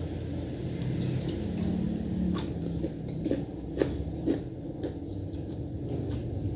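Close-up eating sounds: a person chewing and biting food, with a handful of short sharp crunches and smacks in the middle, over a steady low rumble.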